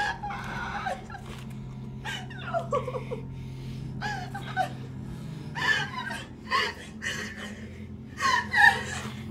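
A woman sobbing and wailing in distress, in broken bursts of high, wavering cries and gasps, loudest near the end, over a low steady hum.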